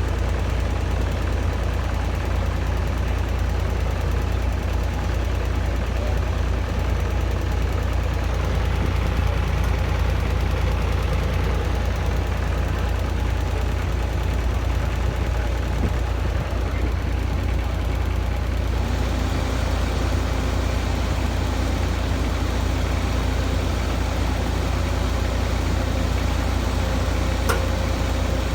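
Heavy excavator diesel engines running steadily with a deep rumble. About two-thirds of the way through the engine note changes and a new steady tone comes in. A single sharp click sounds near the end.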